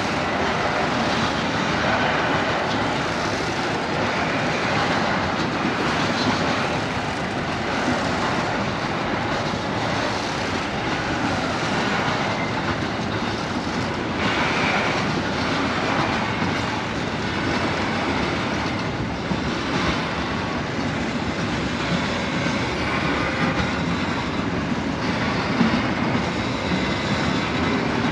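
Freight train wagons rolling steadily past on narrow-gauge track, a continuous rolling rumble of wheels on rail.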